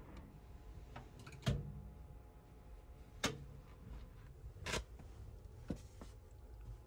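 Steady low rumble of a moving sleeper train heard inside its compartment, with several sharp clicks and knocks, the loudest about a second and a half in.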